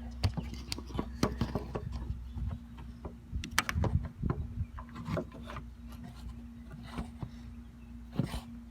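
Wrench work on the trunk latch's 11 mm bolts: irregular metallic clicks, knocks and scraping as the latch is bolted back in, with a faint steady hum underneath.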